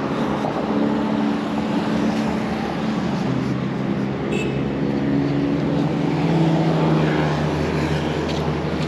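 Road traffic: car and motorbike engines passing on a wide road, a steady engine hum that grows a little louder about six seconds in.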